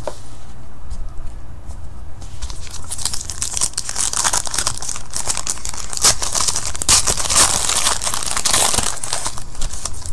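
Foil trading-card pack being torn open by hand and its wrapper crinkled, a dense crackling from about two and a half seconds in until shortly before the end.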